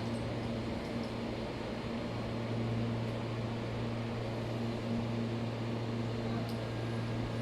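Steady low hum with a fainter, higher overtone, unchanging throughout, over a light background hiss.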